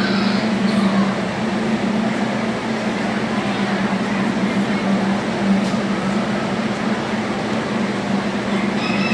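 Steady background din of a poultry show barn: a constant low hum under an even wash of noise and faint distant chatter.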